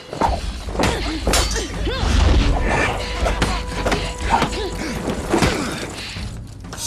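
Film sword-fight sound effects: a rapid string of sword strikes, swishes and hits, with a blade ringing briefly in the middle, over a low rumbling score.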